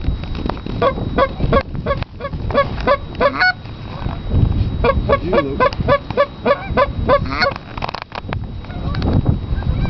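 Goose honking: a rapid series of short honks, about two to three a second, broken by a pause about three and a half seconds in, then picking up again.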